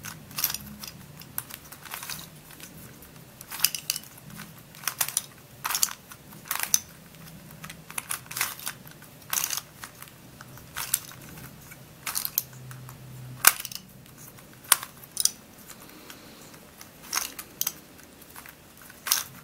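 Plastic Curvy Dino twisty puzzle being scrambled by hand: its curved pieces turn with irregular plastic clicks and clacks, about one or two a second.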